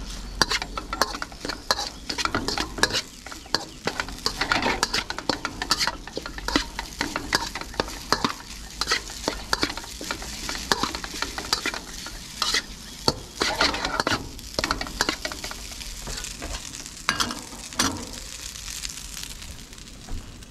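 Fried rice being stirred and tossed in a hot wok: a spatula repeatedly scrapes the pan while the rice and oil sizzle.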